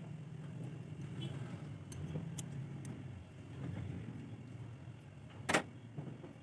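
Light metal clinks of a small open-end wrench turning the float-bowl nut on a small generator carburetor, over a steady low rumble, with one sharp clack about five and a half seconds in.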